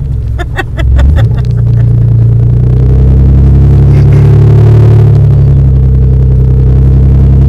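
Engine and gravel-road noise of an off-road vehicle driving down a dirt trail, heard from inside the cabin: a steady low drone that grows louder about a second in. A few short clicks and rattles come in the first second or so.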